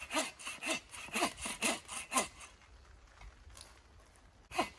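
Bow saw cutting through a wooden log in quick back-and-forth rasping strokes. The strokes stop for about two seconds partway through, then start again near the end.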